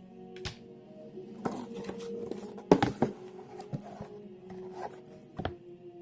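Sharp clicks and knocks of a karambit knife and its sheath being handled, loudest in a cluster a bit under three seconds in, over soft background music.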